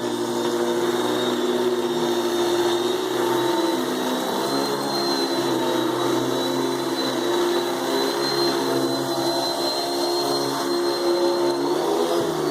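Hoover Dimension 1000 12-amp canister vacuum cleaner running steadily, with a high motor whine over a lower hum; the pitch wavers a little now and then.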